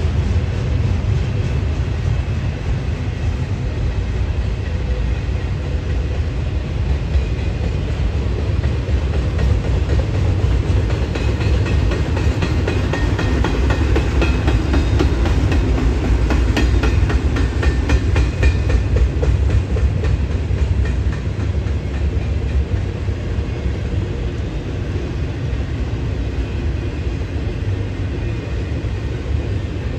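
Double-stack intermodal freight cars passing at speed: a steady low rumble of steel wheels on rail, with rapid clicking as the wheels run over the rail joints, loudest around the middle.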